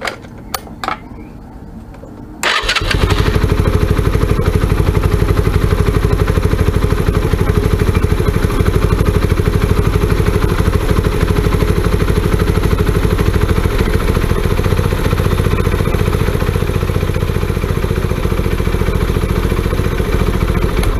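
Keeway Strike 125's single-cylinder engine starting about two and a half seconds in and idling steadily on fresh oil just after an oil and filter change, then shutting off at the very end. A few light clicks come before it starts.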